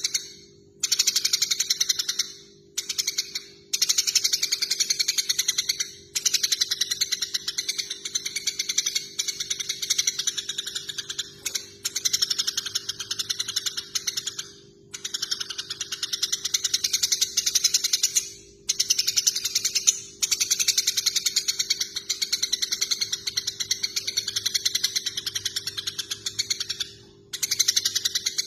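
Eurasian tree sparrows giving harsh, rapid fighting chatter: fast rattling trains of chirps in bouts of a few seconds, separated by short breaks. A faint steady hum lies underneath.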